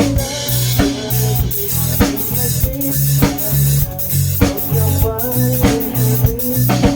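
A rock band playing an instrumental stretch of a song with no singing: drum kit keeping a steady beat, bass notes underneath and a melodic line on top.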